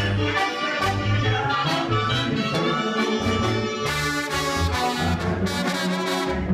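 Banda sinaloense brass band playing: trumpets and trombones carry the melody over a pulsing low bass line and drums.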